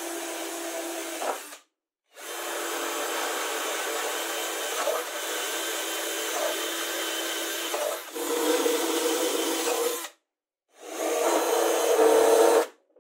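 Cordless drill motor running under load, boring holes in plywood, heard in three runs with sudden cuts between them. In the last run, near the end, the drill turns a brass threaded insert into a hole.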